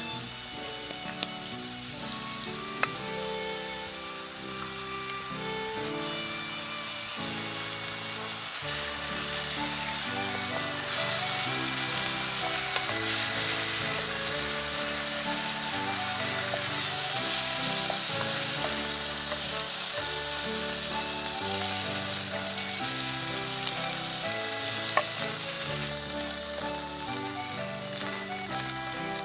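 Food sizzling in a hot frying pan as it is stir-fried, the sizzle growing louder about ten seconds in and easing off later, over background music.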